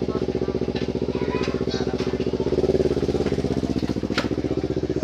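An engine running steadily with a fast, even pulse, its tone shifting slightly about halfway through, with a few light sharp clicks over it.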